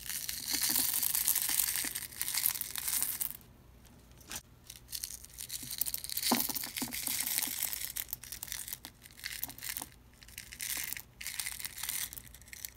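Small lapis lazuli chips poured from a plastic cup into a silicone pyramid mold, rattling and crunching against each other, then shuffled around by a gloved hand in several shorter bursts, with a sharp click about six seconds in.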